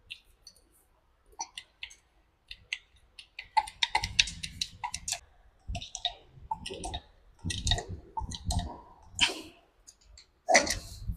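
Irregular metallic clicking and clattering of hand tools on a cable lug while an LT power cable is being crimped. It is sparse at first and gets busier after a few seconds.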